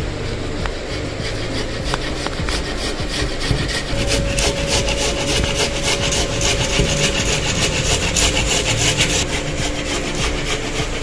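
Boiled potato being grated on a plastic hand grater: rapid, repeated rasping strokes of the soft potato flesh against the grater's holes, a little louder and busier in the middle.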